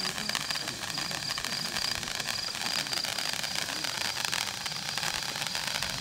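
Hand-held fountain firework (Dominator DM759 pyro wand hand torch) burning, spraying sparks with a steady hiss and a fine crackle.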